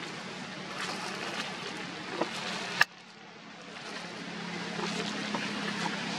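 A steady low motor hum under outdoor background noise, broken by a sharp click a little under three seconds in, after which the sound drops away and gradually comes back.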